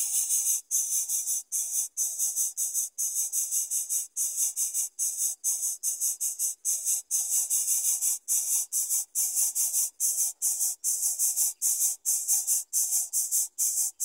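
Yellow-vented bulbul nestlings begging at the nest: a continuous, very high-pitched hissy calling, broken by short gaps two or three times a second.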